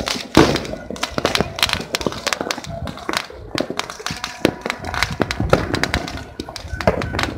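New Year's firecrackers and fireworks going off in a dense, irregular run of sharp pops and crackles, with a louder bang about half a second in.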